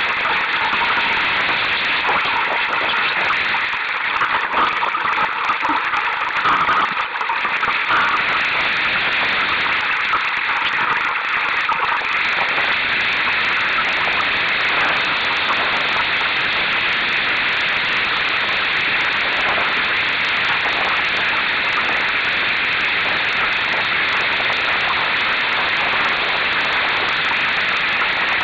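Steady rush of wind and water as a Solo sailing dinghy moves through choppy water, a little uneven in the first several seconds and then very even.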